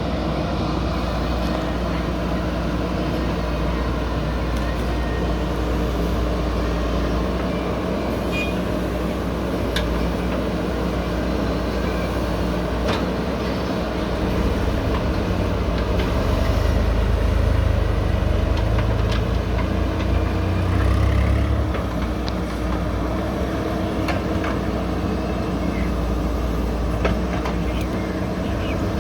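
JCB backhoe loader's diesel engine running steadily, working louder and deeper for several seconds in the middle, with occasional short metallic knocks.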